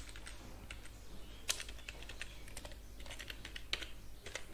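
Computer keyboard typing: a faint, irregular scattering of key clicks as a block label is typed in.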